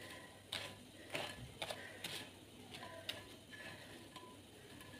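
A metal fork clicking and scraping lightly against a non-stick frying pan as it turns over bread triangles frying in ghee, a few irregular clicks over a faint frying hiss.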